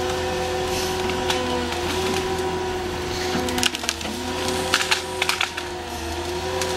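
Excavator-mounted tree shear and saw unit working: a steady machine hum with a hydraulic whine, broken by sharp cracking and splintering of wood several times around the middle as the tree's wood gives way.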